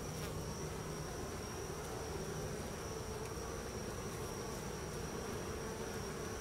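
Honey bee colony buzzing in a steady, dense hum from an opened hive box.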